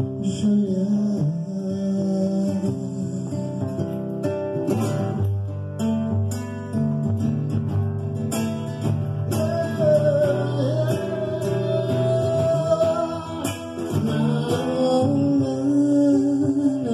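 Acoustic guitar strummed and picked with a man singing over it, his voice coming in mostly in the second half.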